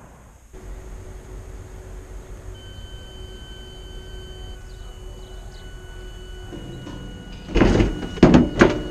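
Quiet background with a faint steady hum. About seven and a half seconds in come several loud clattering knocks as red plastic chairs are handled and stacked.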